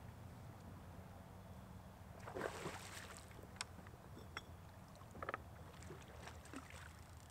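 A hooked blue catfish splashing briefly at the surface about two and a half seconds in as it is played close to the bank, followed by a few faint clicks, over a low steady hum.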